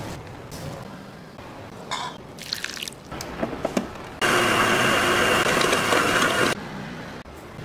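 Soft rustling and a few light clinks and scrapes as dough ingredients go into a stand mixer's steel bowl. About four seconds in, the stand mixer's motor starts and runs with a steady whine while mixing the dough, then cuts off after about two seconds.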